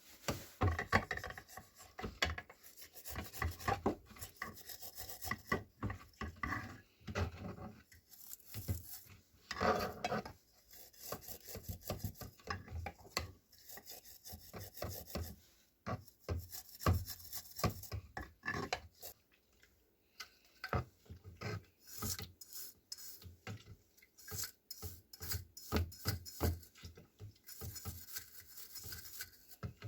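Irregular runs of hand scraping and rubbing strokes on parts of an oil lamp, with short pauses between runs.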